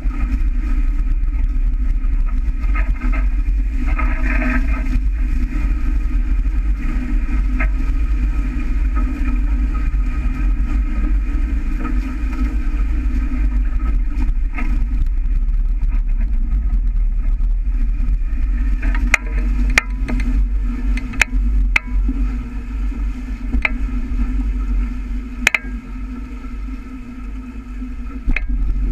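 Wind buffeting the camera microphone and water rushing past the hulls of a sailing catamaran under way, as a loud steady rumble with a steady hum over it. In the second half, sharp clicks of spray and water slapping against the hull come in.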